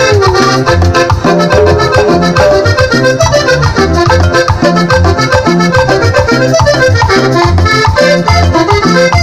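Live band playing an instrumental break, an accordion carrying a fast melody over a steady pulsing bass line, loud through the sound system.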